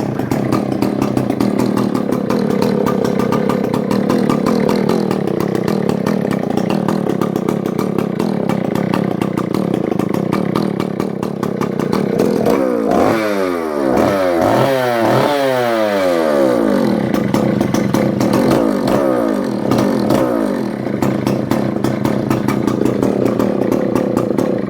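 Vintage Husqvarna 285CD two-stroke chainsaw running with its bar and chain removed, so the engine runs with no chain on. It runs steadily, then through the middle it is revved up and let back down repeatedly in quick blips, settles back to a steady run, and cuts off at the very end.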